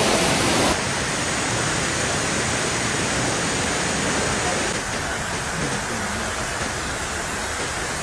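Steady rush of a waterfall and its cascading creek. The sound drops suddenly a little less than a second in, then carries on evenly.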